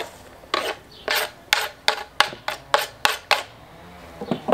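Kitchen knife scraping chopped plantain leaves off a wooden cutting board into a plastic bowl: about ten quick, sharp strokes, two to three a second. A couple of knocks near the end as the board is set down on the table.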